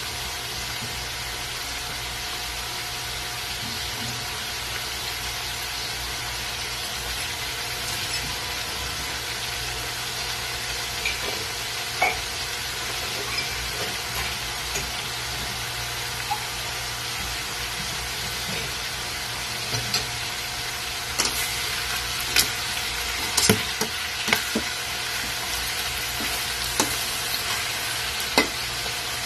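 Pork pieces sizzling in a metal wok with soy-vinegar sauce, black beans and dried banana blossoms, a steady frying hiss over a low hum. In the last third a metal spatula knocks and scrapes against the wok several times as the pieces are stirred.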